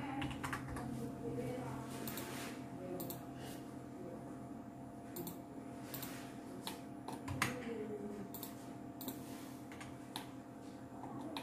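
Computer keyboard keys being tapped in short irregular runs, with one louder click about seven and a half seconds in, over a steady low hum.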